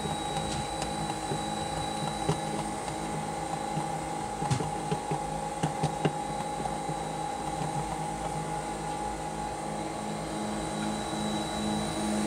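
Vacuum pump of a screen-laminating machine running with a steady, evenly pulsing hum, with a few light clicks about four and six seconds in.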